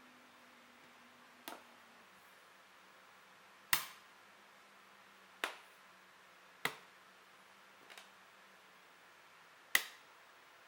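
Steel drill bits clicking one at a time onto a magnetic storage block: six short sharp clicks at irregular intervals of one to two seconds, the loudest about four seconds in and near the end, one faint.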